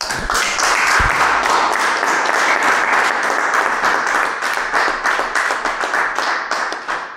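Audience applauding, a dense patter of many hands clapping that fades near the end, with a low thump about a second in.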